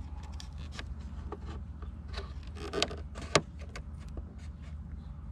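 Scattered light clicks and knocks of hand handling at a caravan's battery box, over a steady low rumble. The sharpest knock comes about three and a half seconds in.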